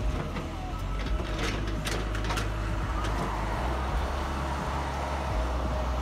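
Cat excavator's diesel engine running under load as its bucket and thumb wrench a tree stump and root ball out of the ground, with several sharp cracks of roots and wood about one and a half to two and a half seconds in.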